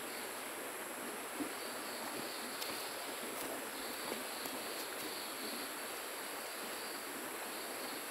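Steady hiss of a small river flowing, with a few faint clicks in the middle.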